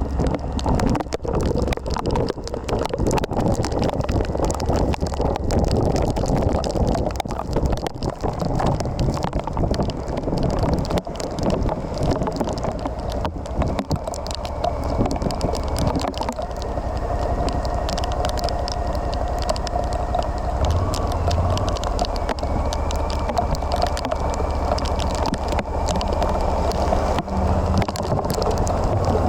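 Suzuki V-Strom 1050XT's V-twin engine running under way, with wind noise on the microphone.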